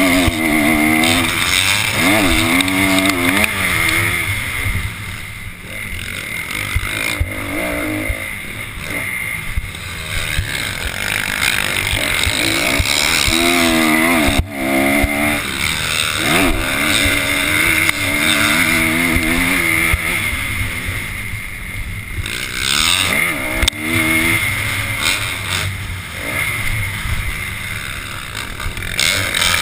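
Dirt bike engine heard up close from on board, revving up and dropping back again and again as it is ridden hard, over a steady rush of wind noise.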